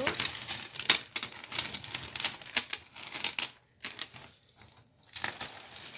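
Tangled costume jewelry being handled and pulled apart by hand: beads and metal chains clicking and rustling in quick, irregular runs, with the sharpest click about a second in.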